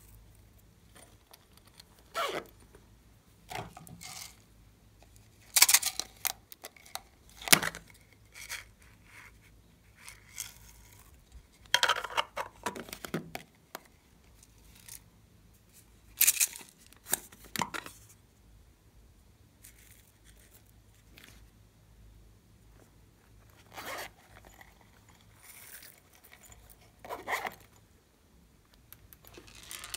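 Scattered short rustling, scraping and tearing-like handling noises as hands work with glitter and small plastic items beside a glass dish of slime ingredients. A dozen or so brief sounds come with quiet gaps between, the loudest about a fifth of the way in.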